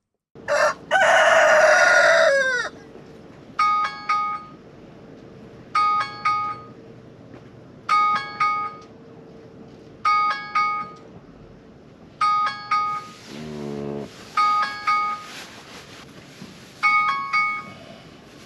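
A rooster crows once, loud, then an alarm ringtone plays a short run of bell-like chiming notes about every two seconds. It is a morning wake-up alarm.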